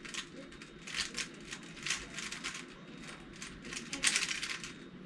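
3x3 Rubik's cube being turned rapidly in a speedsolve: a fast, irregular run of plastic clicks and clacks as the layers snap round.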